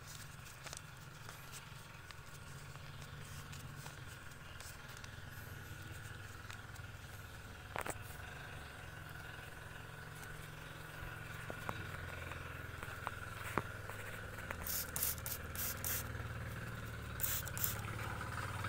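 Plastic trigger spray bottle squirting water in short hissing sprays: a quick run of about five, then two more near the end. Under it runs a steady low engine hum.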